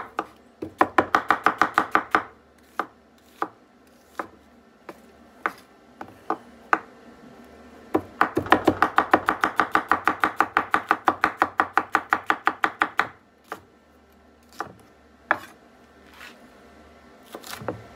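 Chef's knife slicing an onion and then a green bell pepper on a wooden cutting board: quick runs of knife strokes knocking against the board, the longest lasting about five seconds midway, with single cuts in between.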